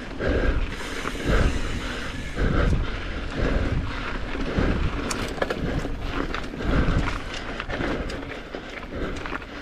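Mountain bike riding over a dirt trail: tyres rolling and the bike rattling over bumps, with scattered clicks and knocks. Wind buffets the microphone in irregular low gusts.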